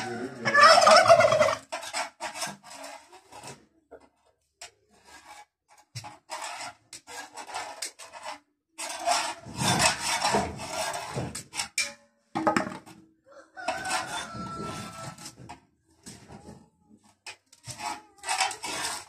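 Domestic turkeys gobbling several times, the loudest gobble about a second in, with a knife scraping as arrowroot (nduma) is peeled.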